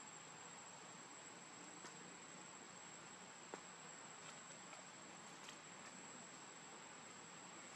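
Near silence: faint steady hiss with a thin, steady high-pitched tone and a few faint clicks, one a little louder about three and a half seconds in.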